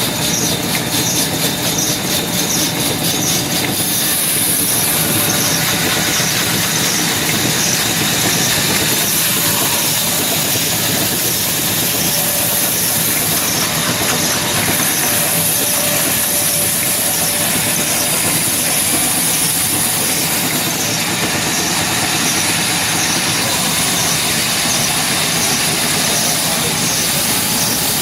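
Power saw running through wood: a steady, loud machine noise with a faint regular ticking.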